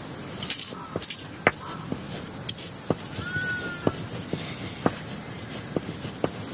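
Scattered sharp clicks and knocks, roughly one a second, over a faint steady hiss; a short high tone rises and falls a little past the middle.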